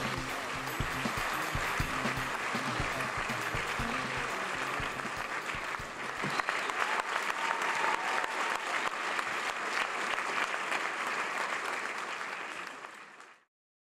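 Audience applauding, a dense continuous clapping, with music underneath at first; the applause fades out near the end.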